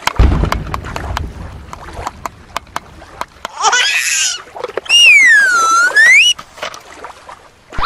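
A run of sharp clicks over a low rumble, then a short squeal that rises and falls, and then the loudest sound: a clear whistle-like tone that slides down and back up over about a second.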